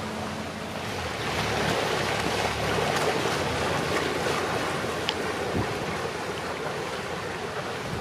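Wind rushing over the microphone and choppy river water, with the low steady hum of a passing motor cruiser's engine beneath for the first few seconds.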